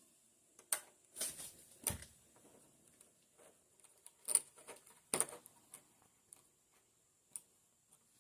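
Faint, irregular clicks and knocks of door knob hardware and a hand tool being handled, a few sharper knocks among lighter taps.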